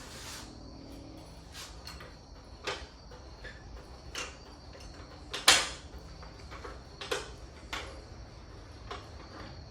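Irregular sharp knocks and clatter, about seven hits spread over several seconds, the loudest a little past halfway, over a low steady rumble.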